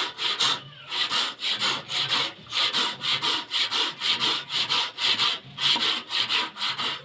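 Hand saw cutting a tenon into the end of a wooden timber, with brisk back-and-forth strokes at about three a second. The sawing stops near the end.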